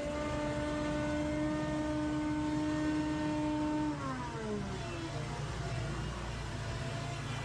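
A small engine running at steady high speed, then throttled down about four seconds in, its pitch falling smoothly to a low run.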